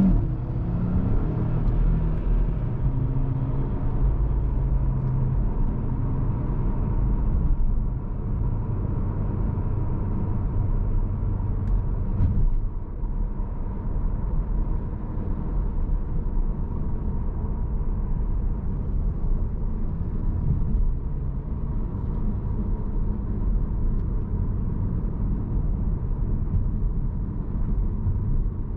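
Cupra Formentor VZ5's 2.5-litre turbocharged five-cylinder engine and tyres on the road while driving. The engine drops off a rev right at the start, then the car cruises with a steady low drone.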